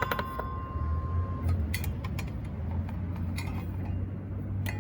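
Metal clicks and clinks of a circular saw blade being handled and fitted onto the saw, the blade ringing briefly at the start and fading out about a second and a half in. A low steady hum runs underneath.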